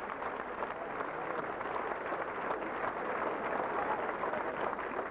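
Steady crowd din of many voices.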